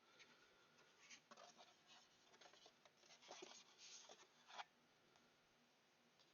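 Faint, irregular scraping and rustling of cardboard and paper packaging being handled, with a few small clicks. It stops about four and a half seconds in.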